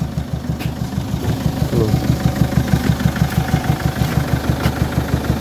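Peugeot 807 2.0 HDi diesel engine running with a fast, even knock, 'tuk-tuk-tuk'. The mechanic puts it down to the valve train: a hydraulic lash adjuster that is not working properly lets air push back toward the air filter, so the knock is heard from that side.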